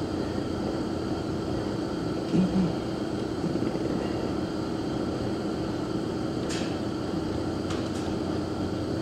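Steady machine hum, like a fan or ventilation unit running, with one faint short low sound about two and a half seconds in.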